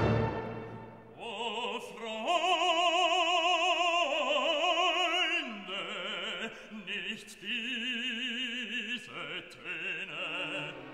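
Background music: an operatic voice sings long held notes with a wide vibrato, in a few phrases with brief breaks, after a loud orchestral chord dies away at the start.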